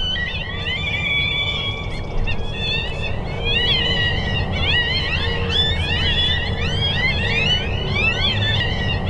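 Chorus of coyote yips and howls: many high, overlapping calls rising and falling in quick succession, over a low steady rumble of wind.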